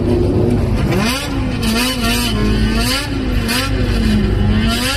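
Motorcycle engine revved up and down again and again, its pitch climbing about a second in and then rising and falling in quick waves.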